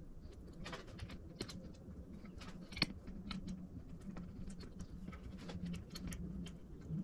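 Light clicks and taps of a stamped-metal valve cover and its gasket being handled and fitted against the cylinder head of a Predator 212 engine, the sharpest click a little under three seconds in, over a faint low hum.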